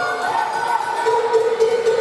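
Music with a long held note, over the hum of a crowd in a large hall, with scattered short claps or knocks.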